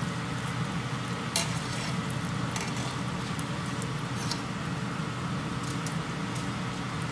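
Battered cassava and chicken balls deep-frying in hot oil in a wok: a steady sizzle of bubbling oil, with a few sharp clicks, the loudest about a second and a half in.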